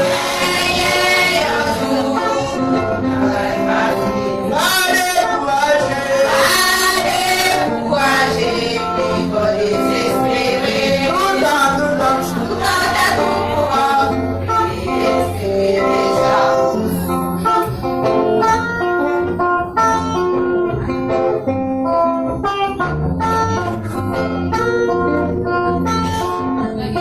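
Church worship music: singing over guitar accompaniment. The voices fall away about two-thirds of the way through, leaving the instruments playing on.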